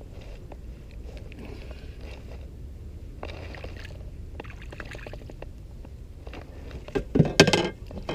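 A small hooked catfish splashing at the surface beside the canoe, in one loud burst of splashing near the end; before it, only faint water sounds.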